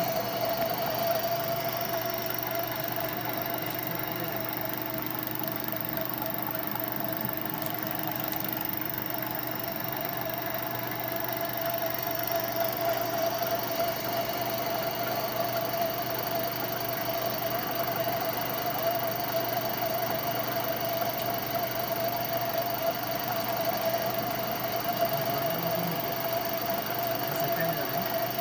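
Lathe running steadily while plain-turning a metal rod: an even machine hum with a strong steady whining tone over it.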